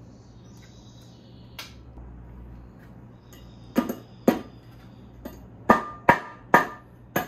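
Mallet tapping a BMW S54 aluminium cylinder head down onto the engine block to seat it: six sharp knocks in the second half, the later ones with a short metallic ring.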